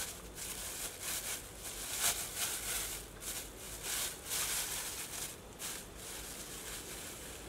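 Thin plastic bags crinkling in irregular bursts as they are handled and unwrapped by hand, dying down about six seconds in.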